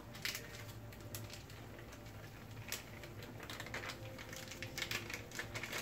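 Light, irregular ticks and rustles of a paper sauce-mix packet being tapped and shaken out over a dish of sliced potatoes, growing busier near the end, over a steady low hum.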